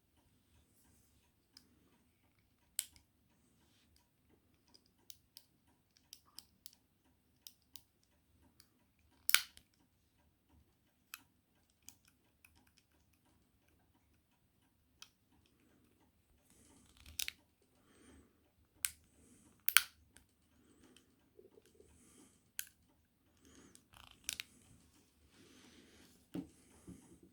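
Scattered sharp metallic clicks and small knocks from a small antique revolver being handled, about six of them loud, with quiet rustling between.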